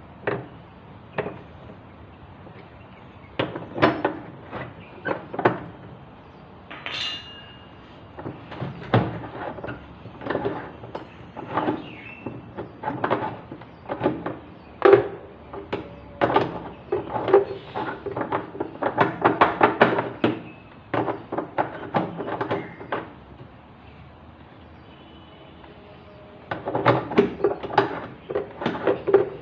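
Irregular knocks, clanks and clinks of washing machine parts and tools being handled during assembly, with a quick run of clicks about two-thirds of the way in.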